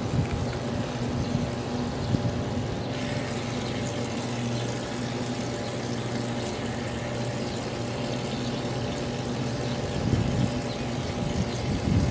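Aerosol shaving cream cans spraying foam onto paper plates, a hiss that sets in about three seconds in, over a steady machine hum.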